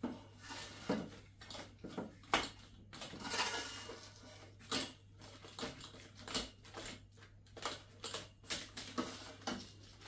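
Metal curtain grommets clinking and scraping as they are slid onto a metal curtain rod, with the curtain fabric rustling. The clicks come irregularly, several a second at times.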